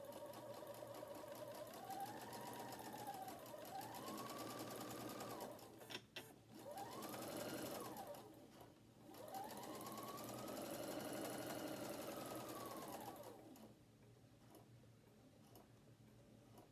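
Noisy domestic sewing machine stitching at a short 2.0 stitch length. Its motor whine speeds up and slows in three runs, with short breaks about six and nine seconds in, and the last and longest run stops a few seconds before the end. The owner calls the machine cranky and due for cleaning and a check-over.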